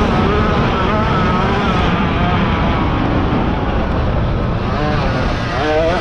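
50cc dirt bike engine at high revs with wind rush on the onboard microphone; the engine note drops about two seconds in as the bike slows, then revs up again near the end.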